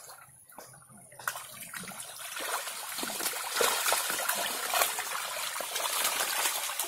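Live fish thrashing and splashing in the shallow water of a net that is being drawn in, a crowded patter of splashes and slaps that gets louder and busier about two seconds in.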